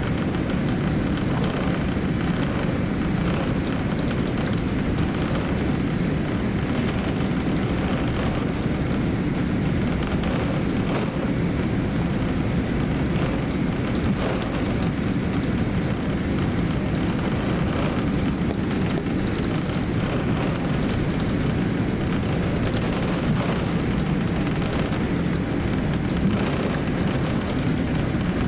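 Steady cabin noise of a Boeing 787-10 airliner taxiing, heard from inside the cabin: an even low rumble of the engines at taxi power and the cabin air, with the wheels rolling.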